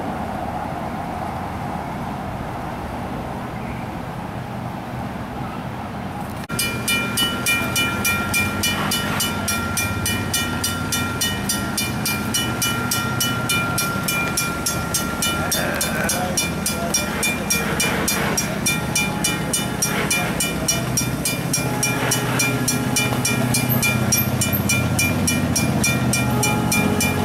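Railroad grade-crossing signal bell ringing in a steady, even rhythm, coming in abruptly several seconds in over a low outdoor hum.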